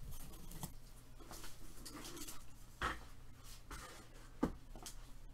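Sleeved trading cards handled on a table: scattered light clicks and taps, the clearest near the middle and about four and a half seconds in.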